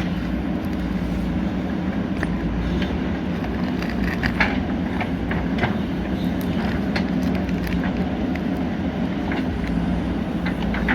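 JCB 3DX backhoe loader's diesel engine running steadily under working load, with scattered sharp knocks and clatter from the machine at work, the loudest about four and a half seconds in.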